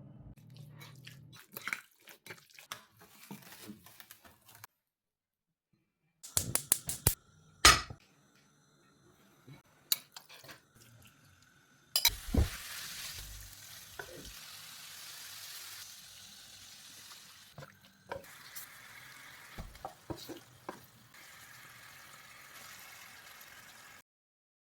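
Kitchen utensils clicking and clinking against a pan and dishes, with a few sharp ringing knocks. About twelve seconds in comes a loud knock, then food sizzling steadily as it fries in hot oil, with occasional stirring clinks. The sound cuts off near the end.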